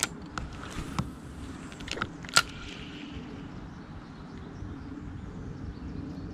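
A handful of sharp clicks and taps from handling a spinning rod and reel, coming in the first two and a half seconds with the last one the loudest, over a low steady background rumble.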